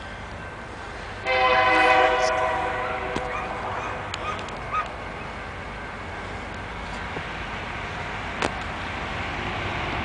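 Union Pacific diesel locomotive horn sounding one long chord about a second in, lasting about two seconds and fading away, over the low rumble of the approaching train, which slowly grows louder.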